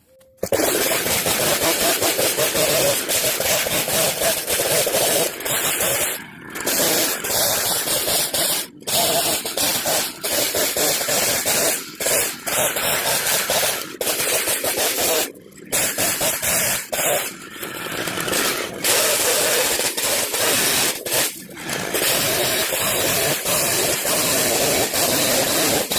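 Chainsaw running at full throttle, bucking the tip and branches of a felled fir tree into firewood lengths. It starts suddenly and has short breaks several times.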